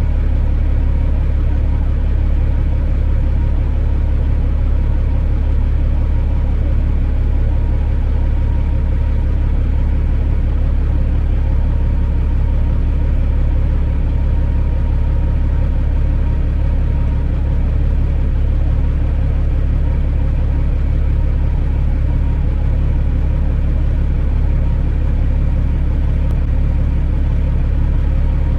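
Semi truck's diesel engine running steadily with a low, even drone, heard from inside the cab.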